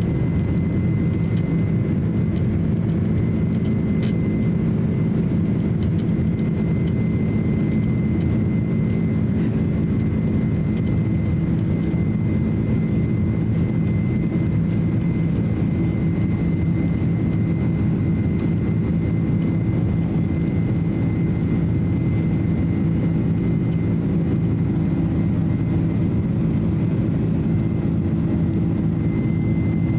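Cabin noise inside a Boeing 767-300 climbing out after takeoff: the steady low rumble of the jet engines and airflow, with a thin high whine that fades about two-thirds of the way through and comes back near the end.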